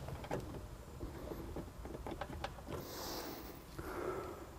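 Faint scattered clicks and light rustling as hands handle a car antenna lead and its connector.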